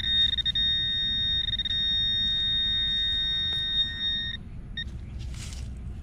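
Handheld metal-detecting pinpointer probed into a dug hole, sounding a steady high-pitched alarm tone for about four seconds, then one short beep. The tone signals metal close to the probe's tip.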